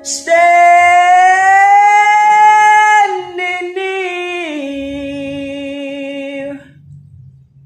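A man singing long held notes: a high note that rises slightly for about three seconds, then steps down to a lower note that is held until it stops near the end.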